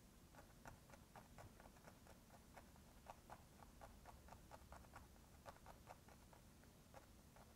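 Faint, quick dabs of a small paintbrush stippling paint onto canvas, making soft ticks about four times a second.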